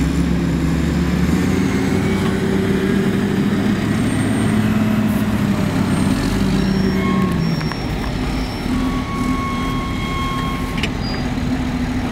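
Heavy diesel engines of oilfield rig-moving trucks running steadily, their pitch drifting slightly up and down. A few brief, faint high tones sound in the second half.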